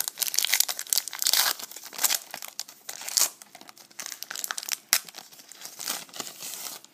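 Trading-card pack wrapper being torn open and crinkled by hand, a quick run of irregular crackling rustles.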